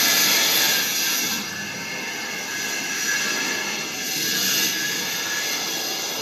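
Automatic tube-to-tubesheet TIG welding machine running: a steady hiss and hum with a high sizzle that drops away about a second and a half in, then swells again briefly around four seconds.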